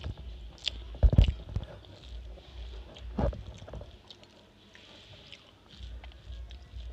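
Someone eating rice with their hand from a steel plate: chewing, with fingers mixing rice against the plate, and two loud thumps, one about a second in and another about three seconds in.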